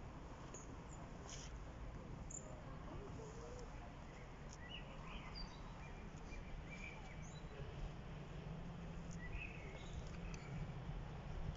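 Low, steady rumble of an electric-hauled freight train approaching in the distance, growing slightly louder near the end, with scattered bird chirps over it.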